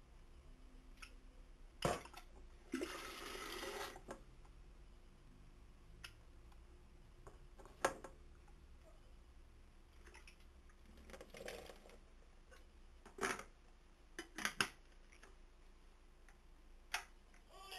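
Stainless electric kettle being filled from a kitchen tap: a short gush of running water about three seconds in, then scattered clicks and clunks as the kettle is handled and set back on its base.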